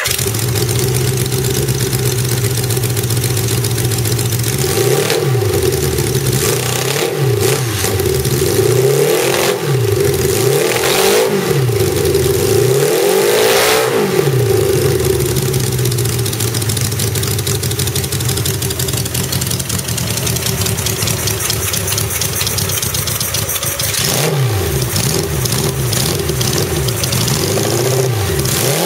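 1978 Suzuki GS750 air-cooled inline-four engine on a stand, fired by a belt-driven four-cylinder Fairbanks Morse magneto, catches and runs. The throttle is blipped again and again, with rising and falling revs about five seconds in through the middle and again near the end, and it holds a steady idle in between.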